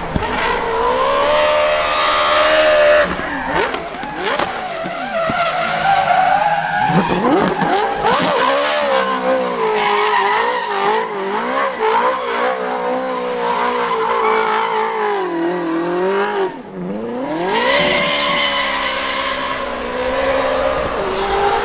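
Ferrari V8 in a Toyota GT86 drift car, revving hard mid-drift with its pitch swinging up and down as the throttle is worked, over the screech of spinning rear tyres. About three quarters of the way through the engine briefly drops off, then climbs again.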